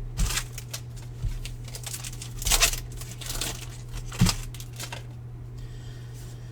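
Crinkling and rustling of trading cards and their foil pack wrappers being handled, with a louder rustle about two and a half seconds in and a sharp knock a little after four seconds. The handling stops for the last second or so, leaving a steady low hum.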